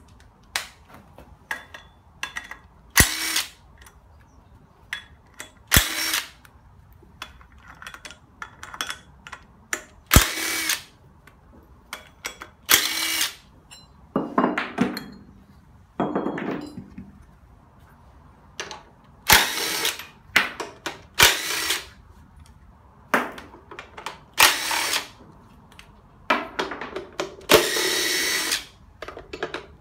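Cordless drill-driver run in about a dozen short bursts, each a second or less, backing bolts out of an engine's plastic timing-belt cover and brackets. Faint metallic clicks of bolts and parts being handled come between the bursts.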